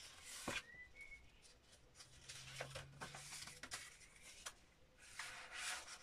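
Faint rustling and crinkling of paper as small paper pieces are handled and slid into the folded pages of a book, with a sharp click about half a second in and a brief high chirp about a second in.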